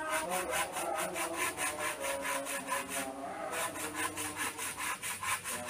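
Hand saw cutting through a wooden fence plank in quick, even strokes, about five a second, with a short pause about three seconds in.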